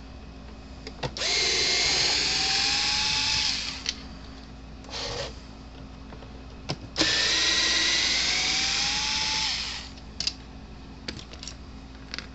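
Screw gun backing the screws out of a Cyclops Hero fence charger's cover in two runs of about two and a half seconds each, its motor whine rising as it spins up and then holding. Small clicks and taps come between the runs.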